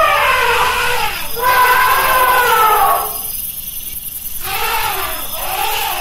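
Elephant calling: a series of high, wavering trumpet-like calls that rise and fall in pitch, breaking off for a second or so about halfway through before resuming.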